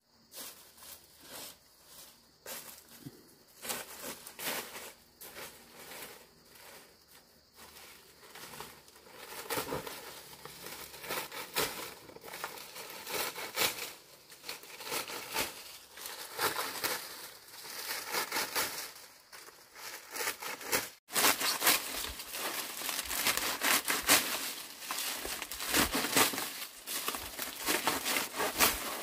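Dense, irregular crinkling and rustling of something being handled or crumpled, louder after a brief break about two-thirds of the way through.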